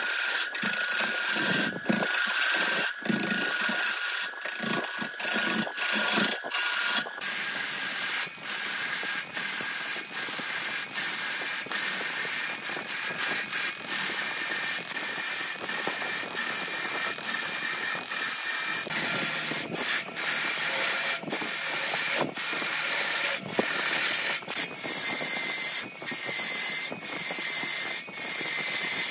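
A turning tool cutting into a log spinning on a wood lathe, peeling shavings off in a dense, high rasp. The cut drops out in many brief gaps, and a thin steady tone runs underneath in the first few seconds and again near the end.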